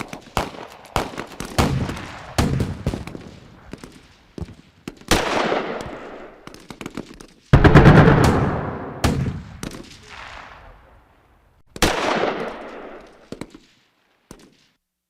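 Battle sound effect: gunfire in quick shots and bursts, with three large explosions whose sound trails off slowly, the loudest about halfway through. Everything dies away shortly before the end.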